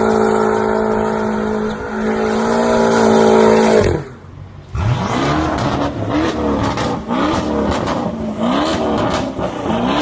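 BMW M6's twin-turbo V8 held at steady high revs for about four seconds, then cut off suddenly. It follows with a string of quick rev blips, about one a second, each rising and falling in pitch, with exhaust crackles and pops between them.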